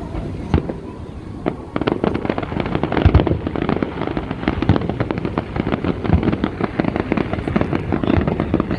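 Fireworks going off in a rapid, dense run of crackling pops and bangs, thickening about two seconds in.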